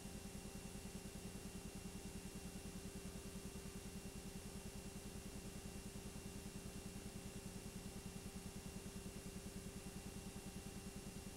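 Steady mechanical running of a film projector: an even, rapid flutter many times a second with a thin steady whine over it, unchanging throughout.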